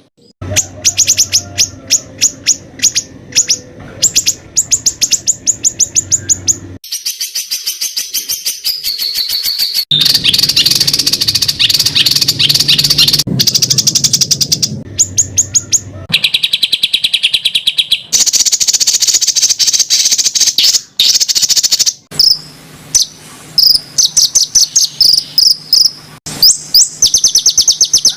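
Recorded songbird song spliced together as a training track: rapid runs of sharp, high, harsh repeated notes and trills, with the recording switching abruptly to a different bird or phrase every few seconds.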